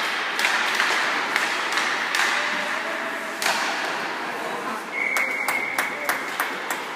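A sharp knocking of play with voices echoing in a large hall; about five seconds in, a referee's whistle is blown once for a little over a second while the knocks go on.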